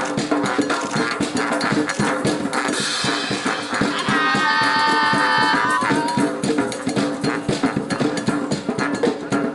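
Band music with drums and percussion beating a steady rhythm, with one held high note over it for about two seconds in the middle.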